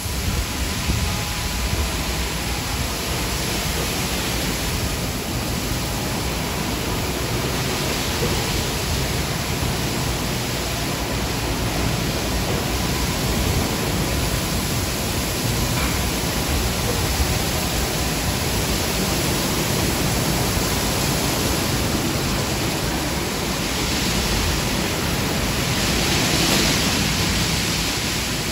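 Steady rushing noise, heaviest in the bass, with a brighter swell near the end.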